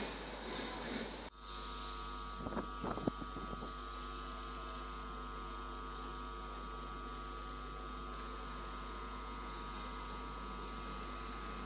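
Steady electric hum of several fixed tones from a WAP7 electric locomotive approaching at a distance, with a few faint clicks about 2.5 to 3.5 seconds in. It is preceded by about a second of rumble from a receding train that cuts off abruptly.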